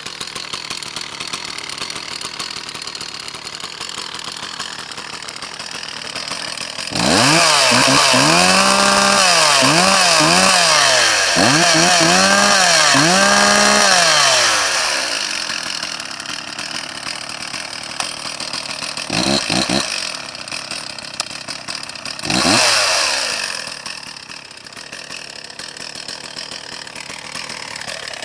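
Stihl 034 AV two-stroke chainsaw idling, then revved up and down several times for about eight seconds with the chain running free, before dropping back to idle. Two short throttle blips follow, and it settles to a steady idle again.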